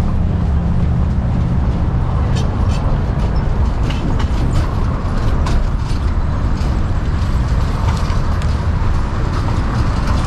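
A horse-drawn carriage rolls over a city street, making a steady low rumble and rattle, with a few faint clicks in the middle stretch.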